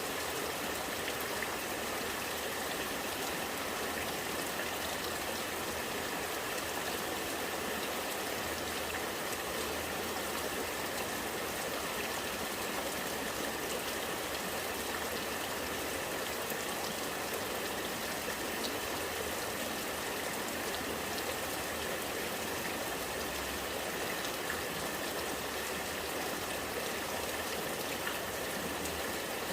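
Rainwater running and gurgling steadily, with rain falling.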